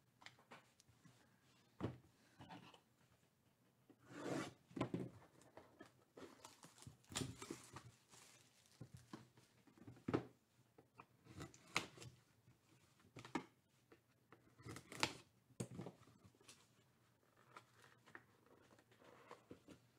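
A box of trading cards being unwrapped and opened by hand: intermittent tearing and rustling of wrapping, with small clicks and taps, coming in short bursts separated by pauses.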